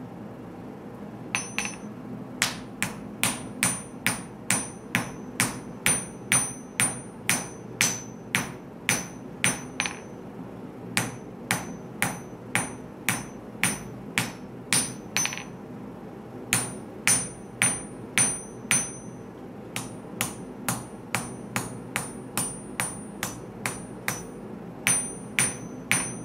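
Hand hammer forging a hot pattern-welded steel knife blade on an anvil: runs of blows at about two a second, each with a bright metallic ring, broken by a few short pauses.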